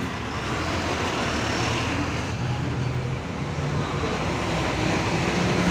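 Road traffic of heavy vehicles: truck and bus engines running close by, a steady low engine hum under road noise. The hum rises slowly in pitch and grows a little louder toward the end.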